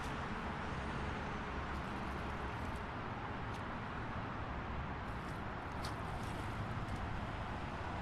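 Steady highway traffic noise: a continuous wash of passing vehicles with a low rumble underneath. A few faint, short high sounds come through about five to six seconds in.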